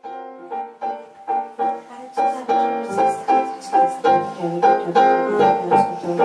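Live band music: a stage piano starts a song with rhythmic repeated chords, and an electric bass joins about three seconds in.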